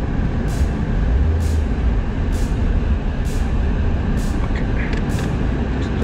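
Car cabin noise while driving: a steady low rumble of engine and tyres on the road, heard from inside the car. A short, soft hissy tick comes about once a second.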